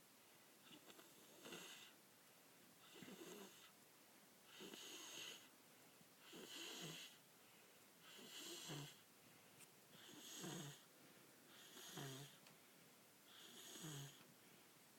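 A sleeping child snoring faintly, about eight snores evenly spaced roughly every two seconds. Each breath has a low rasp with a hiss above it.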